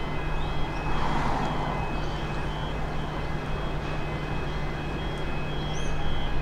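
X'Trapolis 100 electric train running in on curved track with a steady low hum and rumble, growing a little louder near the end as it nears. Over it, a repeating electronic beep sounds on and off at a fixed pitch.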